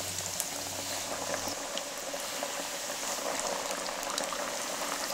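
Hot oil bubbling and sizzling steadily as flour-coated chicken drumsticks deep-fry in a pan, with scattered light crackles.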